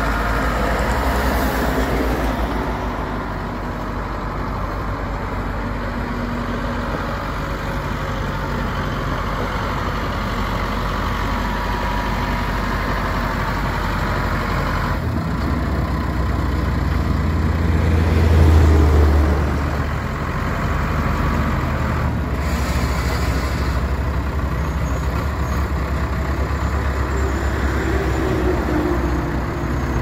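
Case Super K backhoe loader's diesel engine running as the machine drives, a steady low rumble that swells louder for a second or so about two-thirds of the way through.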